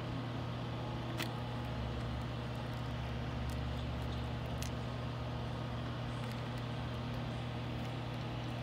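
Steady low machine hum with a few faint light clicks from metal charms on a charm bracelet being handled.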